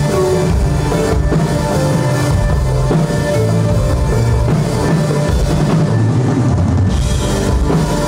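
Live band playing loud music heard from the stage, with the drum kit's kick and snare prominent.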